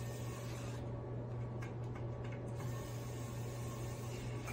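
Cordless mini electric screwdriver running steadily with a low hum as it turns a small screw on a drone, with a few faint clicks.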